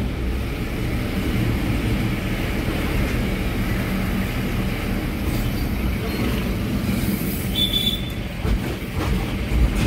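Steady low engine and road rumble heard from inside a moving vehicle, with a brief high-pitched beep about three-quarters of the way through.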